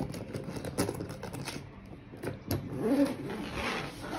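Zipper of a hard-shell carry-on suitcase being pulled open around the case's edge, rasping in irregular stretches with clicks and scrapes as the case is handled.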